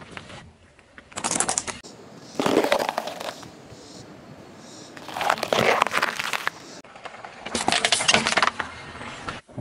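Car tyre rolling slowly over small objects on asphalt and crushing them, a bell pepper and a plastic toy among them: four separate bursts of crunching and crackling, each about a second long.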